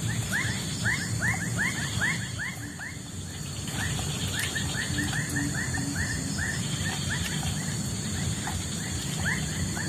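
Outdoor ambience: an animal making runs of short falling chirps, several a second, pausing briefly about three seconds in, over a steady high hiss.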